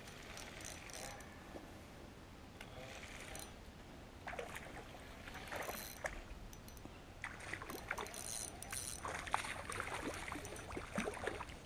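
A hooked shad splashing at the water's surface as it is reeled in to the bank, in irregular bursts of splashing that start about four seconds in and come thicker toward the end.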